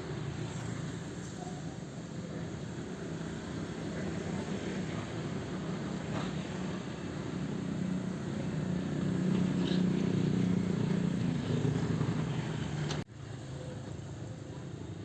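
Sumitomo hydraulic excavator's diesel engine running steadily while it works. It grows louder for a few seconds in the middle, then drops out for an instant near the end.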